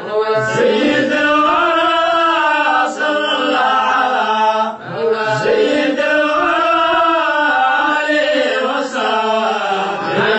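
Male voices chanting a Somali devotional qasiido in long, melodic phrases, with brief pauses between phrases.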